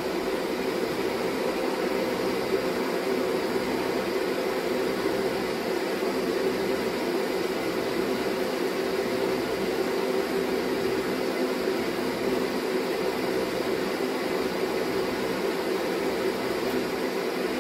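Steady machine hum with an even rushing noise, like a fan running, unchanged throughout.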